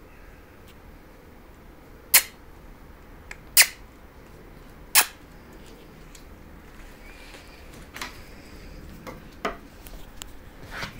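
Three loud, sharp knocks about a second and a half apart, followed later by several fainter clicks and taps.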